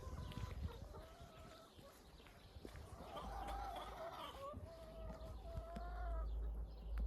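Chickens calling: drawn-out hen calls, with several overlapping from about three seconds in. A low rumble sits underneath.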